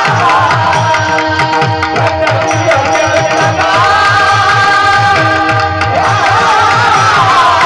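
Kirtan devotional music: a voice singing a wavering melodic line over sustained held instrument notes, with steady hand-drum strokes about four times a second.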